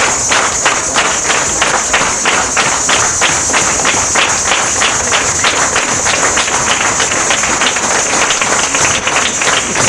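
Many hands clapping together in a steady rhythm, about four claps a second: rhythmic applause.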